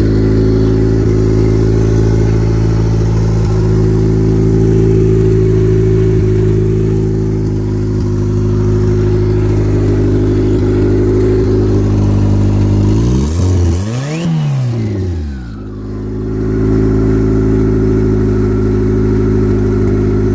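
Car engine idling steadily, revved once about two-thirds of the way through, its pitch rising and falling back to idle.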